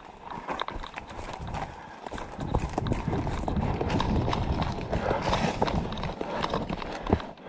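Footsteps of a person running along a leaf-covered forest path: a quick, irregular run of thuds and crunches that grows louder about two and a half seconds in.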